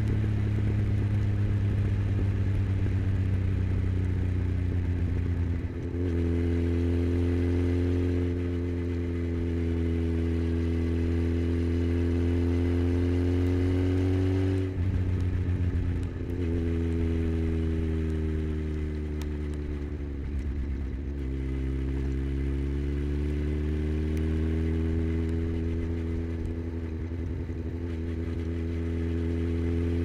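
2009 Honda CBF1000's inline-four engine pulling along the road under way. Its note rises gently in pitch, with brief breaks about 6, 15 and 21 seconds in. It is heard from a camera on the rider's helmet.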